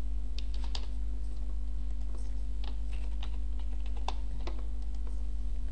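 Computer keyboard keys tapped in short, irregular runs of a few keystrokes, over a steady low hum.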